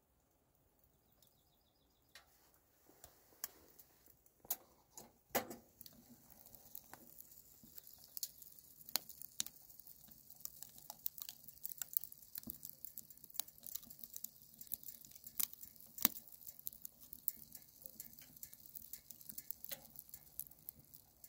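Wood fire crackling inside a Winnerwell Woodlander wood stove: a few knocks early on, then dense, irregular snaps and pops over a faint hiss as the fire catches.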